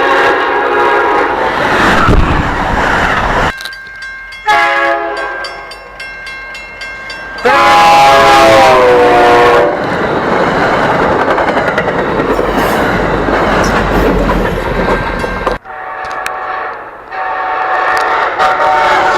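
Diesel passenger train horns sounding several long chord blasts, heard in a string of short clips. Between the blasts is the rushing roar and low rumble of a train going by, with wheel clatter on the rails.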